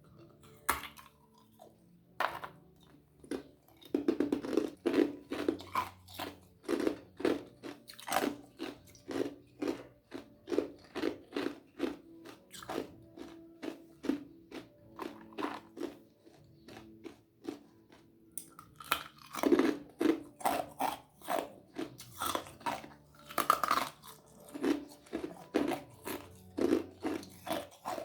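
Ice being crunched and chewed in the mouth close to the microphone: a steady series of short crunches, about one to two a second, a little louder from about twenty seconds in.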